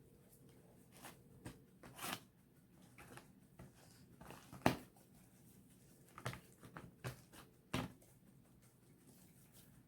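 Slime with shaving cream in it being handled and worked by hand, giving irregular soft sticky crackles and pops; the loudest is about halfway through.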